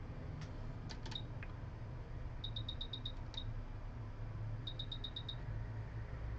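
Short high electronic beeps in two quick runs of about six, with one single beep between them, after a few sharp clicks, over a steady low hum.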